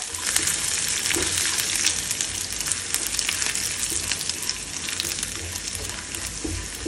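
Chopped cashews and almonds frying in hot ghee in a nonstick pan: a steady crackling sizzle while a silicone spatula stirs them round.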